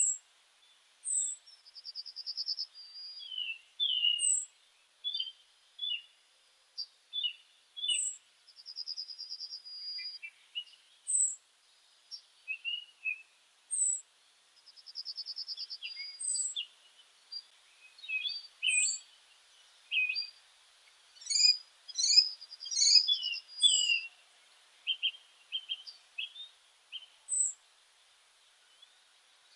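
Songbirds chirping and singing: a thin, high, falling note repeats every few seconds over short buzzy trills and many quick chirps, busiest a little past two-thirds of the way through.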